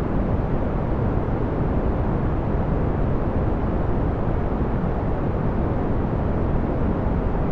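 Steady brown noise: a constant deep rushing hiss, strongest in the low end and falling away toward the top, without change, tones or clicks.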